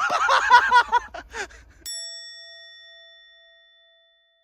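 A single bell-like ding sound effect added in editing: it strikes sharply about two seconds in and rings out with a clear tone and overtones, fading over about two seconds while the location sound is cut away to silence.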